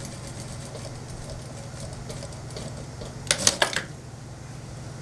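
Industrial sewing machine running over a steady low hum, stitching in quick faint ticks early on. About three seconds in comes a short cluster of sharp clicks and rustling as the fabric is handled at the machine.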